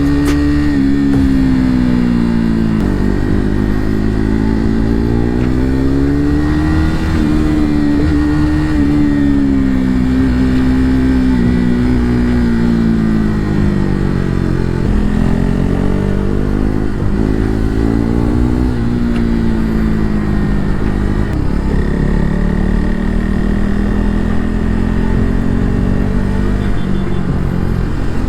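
KTM RC 390's single-cylinder engine running under load while riding, its engine speed rising and falling again and again as the throttle is opened and eased through a run of turns, with brief drops in revs along the way.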